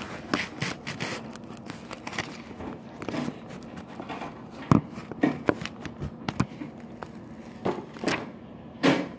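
A phone being handled and propped up against the microphone: scattered knocks, scrapes and rustles, with a sharper thump about halfway through and another near the end.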